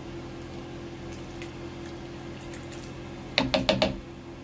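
Thick mung bean soup being stirred in a pan, soft and wet, over a steady low hum. Near the end, four quick sharp taps.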